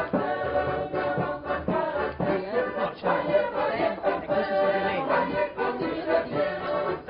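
Several voices singing together over music, like a choir.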